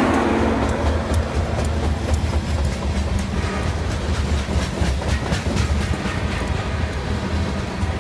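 Freight train's covered hopper cars rolling past: a steady low rumble of steel wheels on the rails, with frequent sharp clicks as the wheels pass over rail joints.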